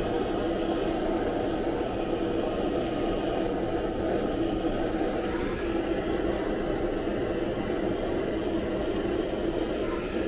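Handheld kitchen blowtorch burning with a steady rushing noise as its flame sears fish fillets, crisping the skin.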